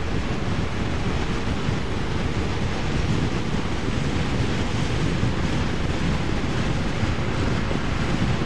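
Steady wind rushing over the microphone of a scooter moving at road speed, mixed with road noise.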